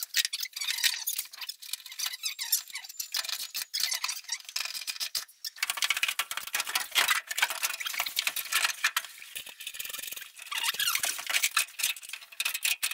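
Metal clinking, scraping and squeaking as bolts, brackets and the welded steel frame of a rock-and-roll bed seat are handled and set in place on the bus floor: a busy run of sharp clicks and rubs.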